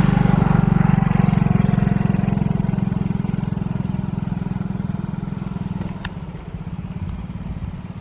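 An engine running with a steady low, rapid throb, loudest at first and gradually fading away. A single sharp click about six seconds in.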